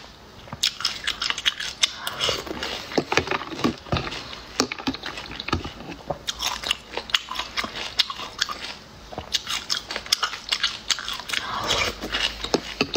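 A person chewing and biting small snails in their shells, with many sharp clicks and crunches in quick, uneven succession.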